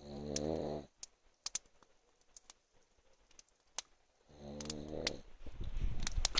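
A man snoring heavily in his sleep: two long, low, buzzing snores about four seconds apart, the first at the very start and the second a little past the middle. Sharp little clicks sound in between.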